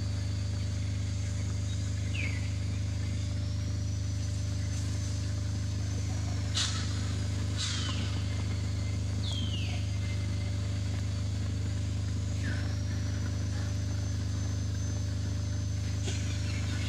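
A steady low hum, with a faint high whine that steps up in pitch a few seconds in and drops back near the end. About six short, high chirps that fall in pitch are scattered through it.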